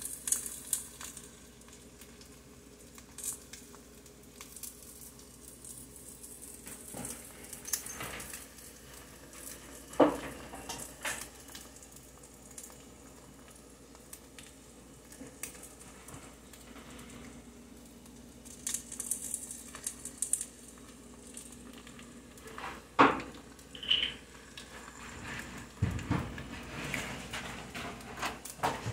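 Eggs frying in sesame oil in a pan, a faint steady sizzle, with scattered clinks and knocks of a utensil against the pan, the sharpest about 10 and 23 seconds in.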